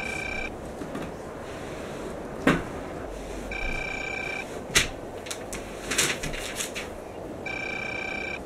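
An electronic beep, about a second long, repeating three times at four-second intervals, with a few sharp knocks and clatters in between, the loudest about two and a half and five seconds in.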